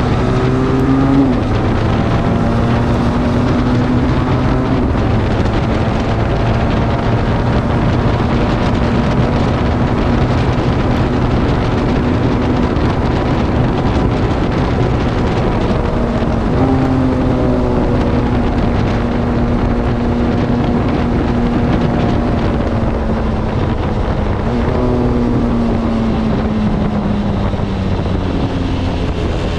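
Benelli TRK 502's parallel-twin engine running through its stock exhaust while riding, heard from the rider's seat under heavy wind noise on the microphone. The engine note climbs and drops about a second in, rises again near the middle, and falls away slowly near the end as the bike changes speed.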